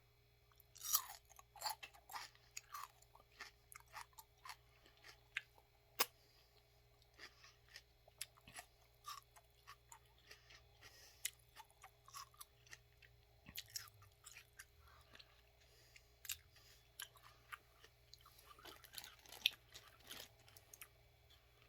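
Close-up chewing of raw celery: irregular crisp crunches as the stalks are bitten and chewed.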